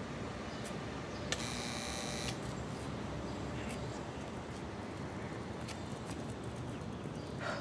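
Electric door buzzer sounding once for about a second, with a click just before it, over a steady hum of city street traffic.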